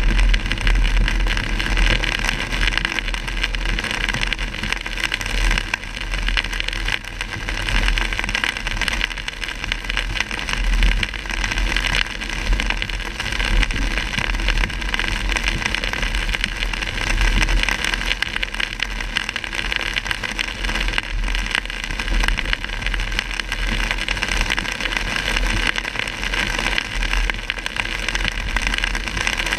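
Heavy rain on a car's windshield and roof with steady tyre and road noise and a low rumble, heard from inside the cabin of a car driving on flooded wet roads.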